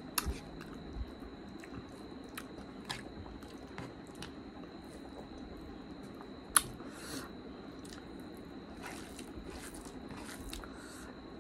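Close-up eating sounds of rice and curry eaten by hand: chewing with small wet lip smacks and clicks, and fingers squishing the rice on the plate. One sharper click comes about six and a half seconds in.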